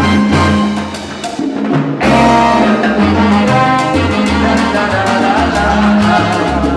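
Live salsa band playing, with keyboard, bass and percussion. The sound thins briefly, then the full band comes back in strongly about two seconds in.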